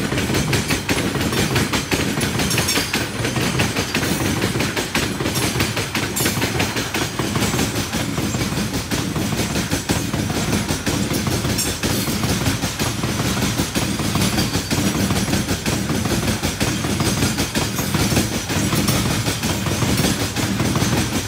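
Covered goods wagons of a loaded Indian Railways freight train rolling past at trackside: a steady rumble of steel wheels on the rails with a continuous clickety-clack of clanks and knocks as the wheels cross rail joints.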